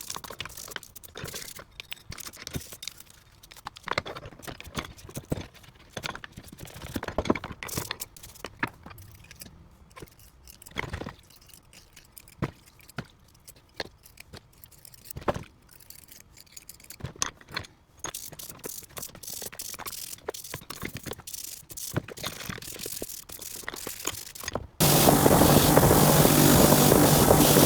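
Irregular clicks, light knocks and short scrapes of small metal vise parts being handled. About 25 seconds in, a loud electric machine motor, most likely the bench wire wheel or polisher used to clean and polish the parts, starts abruptly and runs with a steady hum.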